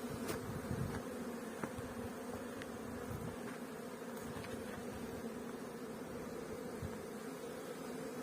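Many honeybees flying around beehives, a steady buzzing hum.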